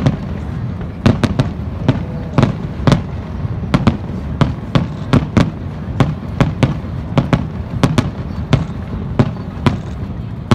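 Aerial firework shells bursting in rapid, uneven succession, sharp booms about two or three a second over a constant low rumble.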